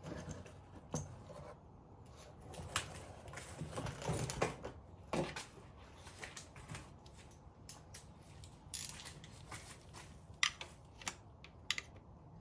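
Knocking and scraping as a drain funnel and tools are handled, then a ratchet on an extension clicking in scattered sharp clicks on the 10 mm bolts of the automatic gearbox's oil pan near the end.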